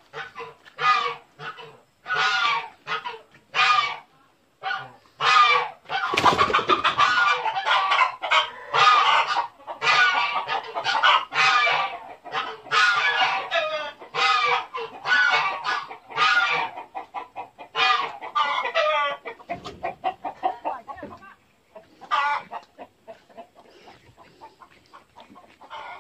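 Chickens clucking and squawking with geese honking among them, many calls overlapping. The calls are busiest in the middle and thin out near the end.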